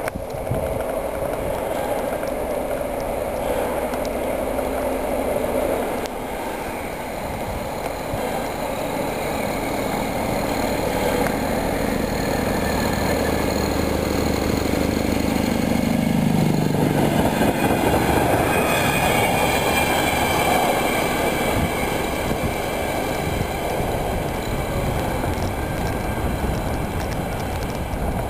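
VR Class Dv12 diesel-hydraulic locomotive approaching and passing with a short freight train: its engine running steadily and falling in pitch as it goes by about 16 seconds in. After that come the wagons rolling past, with some high ringing tones, as the train moves away.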